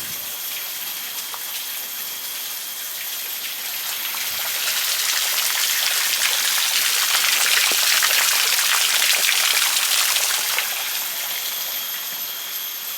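Rushing water, a steady hiss that swells louder from about four seconds in and eases off again near the end.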